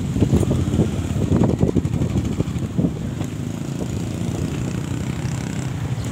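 Small motorcycle engine running steadily as the rider moves along, with wind buffeting the microphone. The buffeting comes in louder, uneven gusts during the first few seconds.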